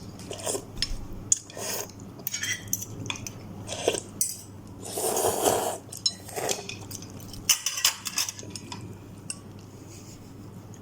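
Cutlery clinking and scraping against a bowl of instant noodles while eating, in short irregular clinks, with a longer noisy stretch about five seconds in.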